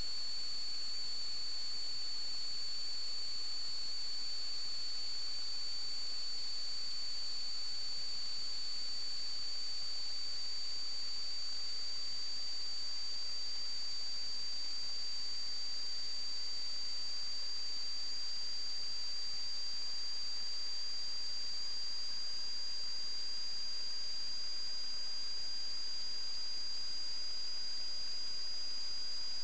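A steady high-pitched electronic whine over a constant hiss, its pitch creeping very slightly higher; the recording noise of a sewer inspection camera system.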